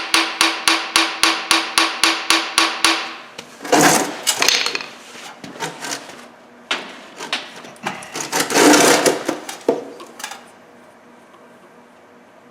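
Hammer tapping a screw extractor into a drilled-out broken exhaust manifold stud in a cast-iron cylinder head: quick, even, ringing metal-on-metal strikes, about five a second, stopping about three seconds in. Then two spells of irregular metallic clatter and scraping, falling quiet near the end.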